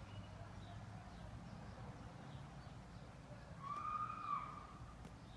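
A single drawn-out bird call about four seconds in, rising then falling in pitch, over a low steady background hum.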